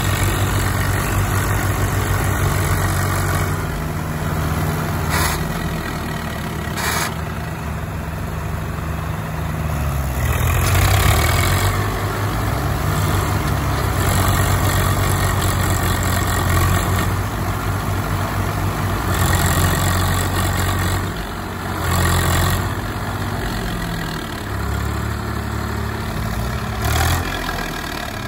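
Swaraj 744 FE tractor diesel engines running under heavy load, the engine note rising and falling several times as the revs change while the tractors strain to pull a loaded trolley out of mud.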